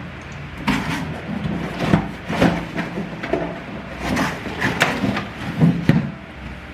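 Handling noises of unpacking a coffee machine from its box: irregular knocks, taps and short rustles as cardboard packaging and parts are lifted out and set down.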